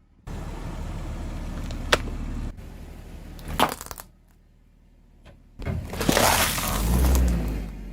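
A car's tyres rolling over and crushing objects: sharp cracks and pops over a low engine hum, then a louder crunching stretch with a heavy low rumble near the end. The sound is cut into several short takes.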